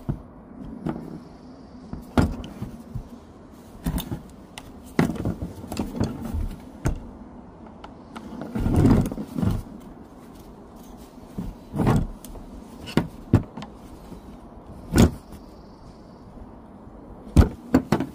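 Irregular clicks, knocks and rattles of hard plastic as a screwdriver pries the vent valve out of a used EVAP charcoal canister, the canister and tools knocking on a plastic bin lid. A couple of sharp clicks come near the end as the valve comes free.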